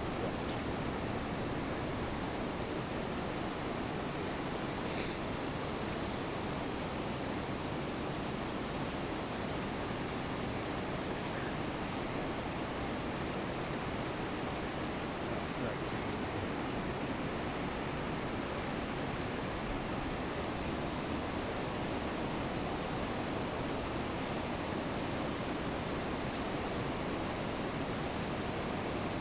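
Steady rush of flowing river water, an even noise that never lets up.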